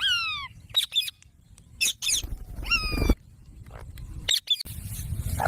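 Pet parrot calling: a short squawk falling in pitch at the start, a few sharp clicks, and another call about two and a half seconds in, with a low rumble under it. A further call comes near the end.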